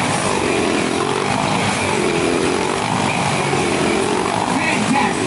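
Small motorcycle engines revving as riders loop around inside a steel-mesh globe of death. The engine pitch rises and falls over and over, about once a second.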